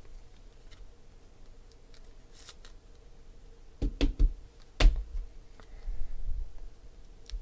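Hands picking up and handling trading cards on a table: a few faint clicks, then two loud dull thumps about four and five seconds in as the hands reach in, followed by a short rustle of cards being slid against each other.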